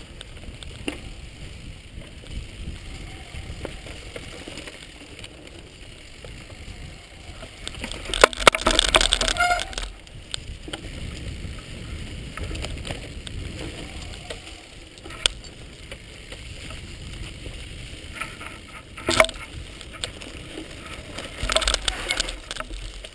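Mountain bike ridden fast down a rough dirt forest trail with the camera riding along: a steady rumble of tyres and wind, broken by loud rattling jolts over bumps about eight seconds in and again near the end, with single sharp knocks in between.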